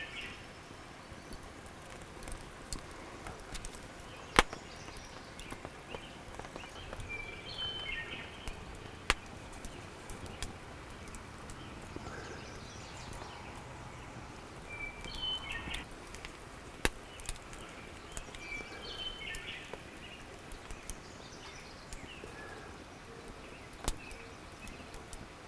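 Multitool knife blade cutting a nock into the end of a wooden arrow shaft: quiet scraping of steel on wood with a few sharp clicks. A bird calls a few times in the background.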